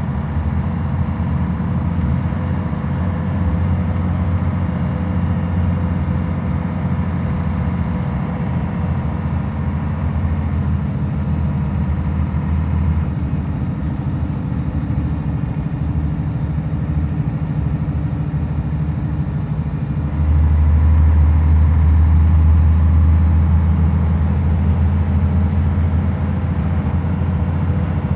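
Scania DC11 310 hp inline-six diesel of a 2003 Scania K114IB bus, heard from inside the passenger cabin as a steady low drone. The drone steps up sharply and grows louder about two-thirds of the way through.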